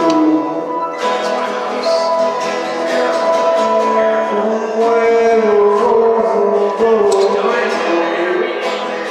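A live song: a guitar strummed with a held, gliding singing voice over it.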